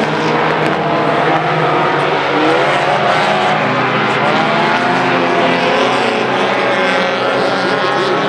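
Tuner-class race cars' engines running hard on the track. Several engine notes overlap, their pitch rising and falling as the cars go through the turn and onto the straight.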